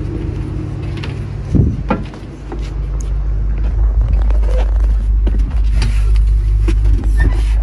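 An engine running with a steady low drone, which grows clearly louder about two and a half seconds in, with a few short knocks early on.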